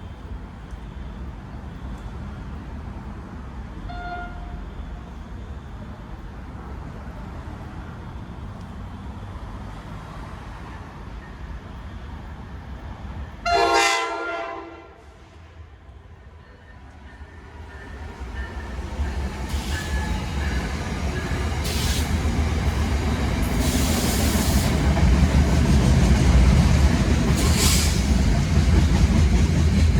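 A passenger train's horn sounds one short blast about halfway through. Then a train passes, its rumble of wheels on the rails building to the loudest point near the end, with a few sharp clicks as it goes by.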